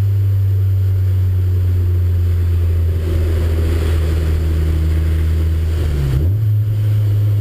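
Car engine running with a steady low drone; about six seconds in its pitch dips briefly and then settles again.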